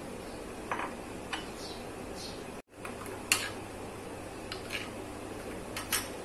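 A metal spoon clinking lightly against a ceramic bowl of dissolved gelatin, a few scattered taps over a steady hiss.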